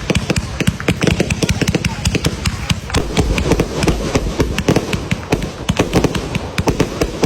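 Fireworks going off in a dense, irregular string of sharp cracks and bangs, many a second.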